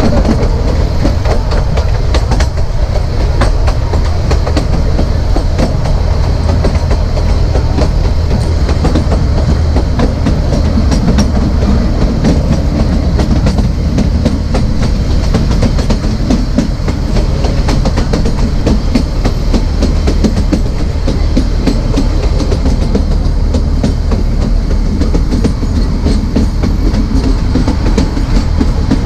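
Narrow gauge passenger train running, heard from on board: steady rumble of the coach with the wheels clattering over rail joints.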